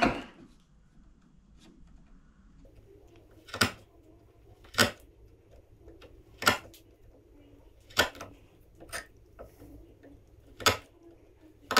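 Small woodworking chisel paring the shoulder of a tenon at the gauge line, taking little bites: a series of crisp, short clicks about every one to two seconds, starting a few seconds in.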